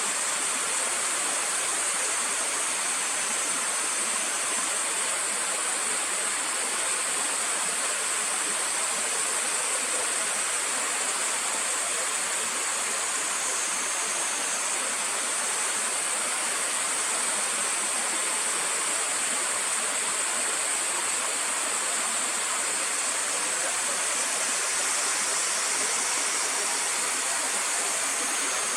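Steady rushing of stream water, unbroken and even.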